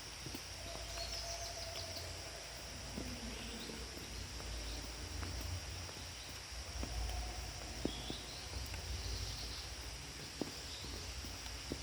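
Forest ambience: a steady high insect drone with a few bird calls over it, a low rumble beneath, and a few light clicks.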